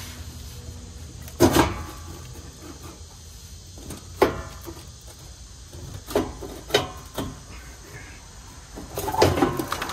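Sharp metal clanks and knocks from hand work under a pickup truck, with tools and parts being handled and set down. The loudest pair comes about a second and a half in, single knocks follow every second or so, and a rattling cluster comes near the end.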